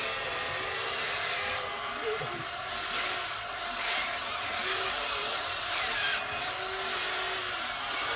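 Radio-controlled excavator's small electric motors and gears whirring steadily as it works, with a wavering whine that grows a little louder in the middle.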